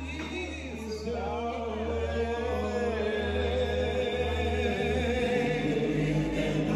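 Music with a singing voice holding long, slightly wavering notes over a steady low accompaniment.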